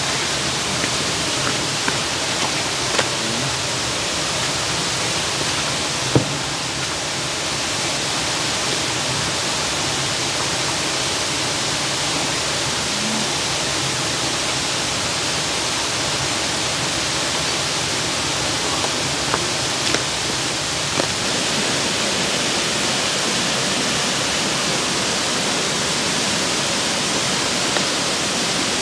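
Steady rushing water, the even roar of a waterfall or fast river, with a few faint knocks; the sharpest comes about six seconds in.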